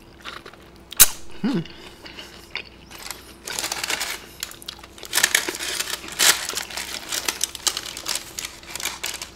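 Crackling and rustling of crispy fried chicken and the wax-paper liner it sits on as the pieces are handled and torn apart by hand, in dense clusters from about three and a half seconds in. A single sharp click comes about a second in.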